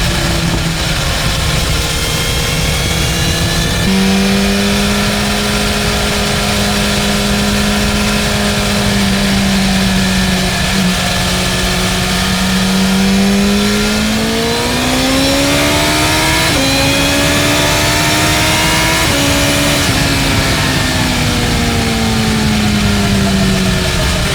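BMW M1000R's inline-four engine running at speed under a steady rush of noise. Its pitch holds fairly steady, then climbs under acceleration from about halfway. It drops sharply at a gear change and again a few seconds later, then falls gradually as the bike eases off.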